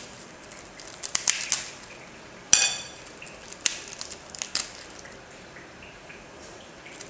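Crisp deep-fried rice-flour and aval murukku snapping and crackling as it is broken apart by hand, in small clusters of dry cracks with the sharpest crack about two and a half seconds in. The easy, brittle snapping is the sign that the murukku is fried crisp.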